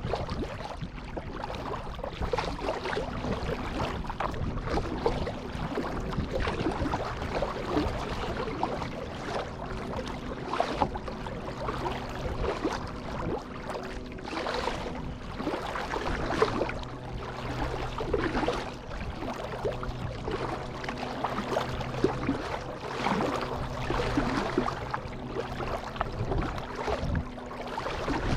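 Kayak paddling on a pond: paddle blades dipping and pulling through the water, with splashing and dripping that swell and fade every couple of seconds, and water lapping at the hull. A low steady hum comes and goes underneath.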